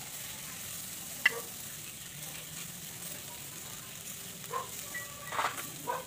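Cuttlefish sizzling on a wire grill over hot charcoal as it is basted with a brush: a steady hiss, with a sharp pop about a second in and a few short pitched sounds near the end.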